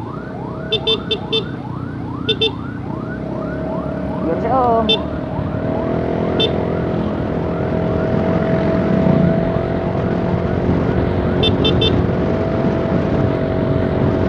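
Emergency siren sounding in quick rising sweeps, about two a second, which die away about seven seconds in, with short bursts of rapid beeping now and then. Under it, riding noise from the motorcycle and a steady droning tone that grows louder from the middle on.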